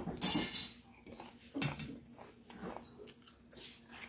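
Crisp fried potato slices crunching as they are chewed: a loud crunch right at the start, then softer scattered crunches.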